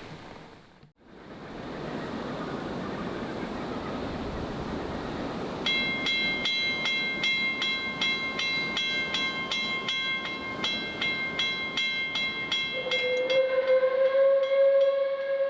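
A level crossing's WCH mechanical bell starts ringing about six seconds in, in quick even strokes, as the crossing activates. Near the end a steam locomotive's whistle joins it, held as one long steady note.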